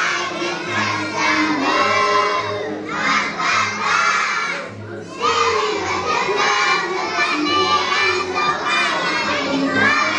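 A group of preschool children singing a song together in loose unison, with a short break between lines about five seconds in.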